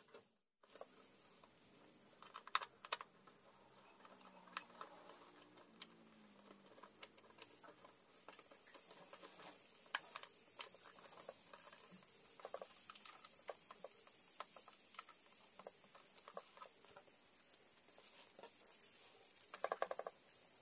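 Faint scattered clicks and light taps as the top cover of a Honda GX35 brush cutter engine is handled and fitted back into place, with a quick run of clicks near the end.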